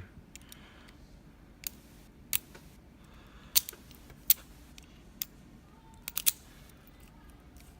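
A key being pushed into a Union rim cylinder lock and turned: a series of sharp metallic clicks and rattles, each separate, the loudest two in the middle. The key is a little rough going in but turns smooth.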